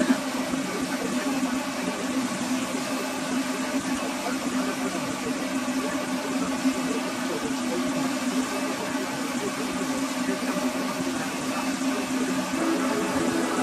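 A small motor running steadily, a constant hum with an even hiss over it.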